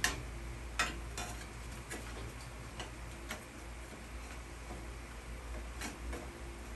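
Scattered light clicks and taps of metal and plastic parts being handled as the turn signal switch and its wiring cord are fed down into a steering column housing, at irregular intervals over a low steady hum.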